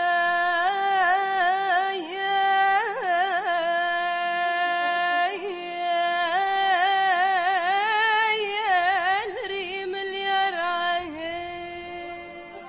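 Background music: a single ornamented melodic line of long held notes broken by quick trills and runs, fading down near the end.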